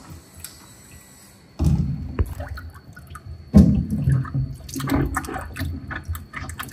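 Tap water running and splashing into a stainless-steel kitchen sink while a small monkey's hands are washed under it. It starts suddenly about one and a half seconds in, surges again about two seconds later, and goes on with uneven splashes.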